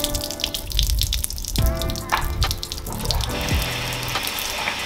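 Water running out of a boat hull's drain hole and splashing onto wet paving, the flow heavier from about three seconds in, with background music.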